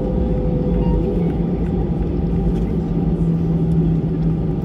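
Cabin noise of an Airbus A320 taxiing: a steady low rumble of the engines at idle, with a steady low hum and a fainter higher tone that fades out about a second in.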